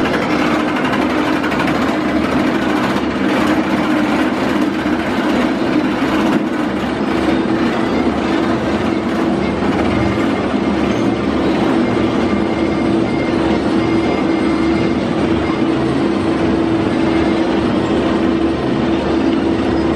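B&M inverted roller coaster train climbing its chain lift hill: a steady, loud mechanical rattle from the lift chain, with a constant hum.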